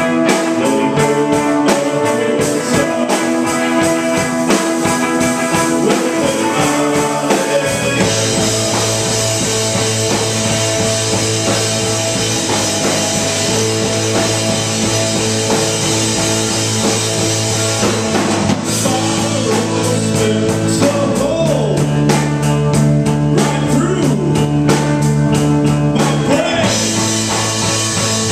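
Live rock band playing with electric guitars and a drum kit. A steady bass line and cymbals come in about eight seconds in, filling out the sound.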